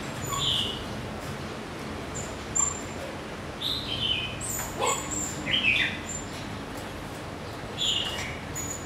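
Border Collie puppies whimpering: several short, high-pitched squeaks spread through the clip, a couple of them close together.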